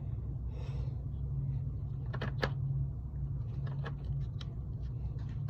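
A few short, sharp metallic clicks and taps as a copper line is clamped into a flaring tool's clamp block, over a steady low hum.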